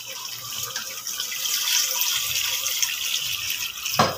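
Yellow broth poured in a steady stream from a bowl into an aluminium pot of masala gravy.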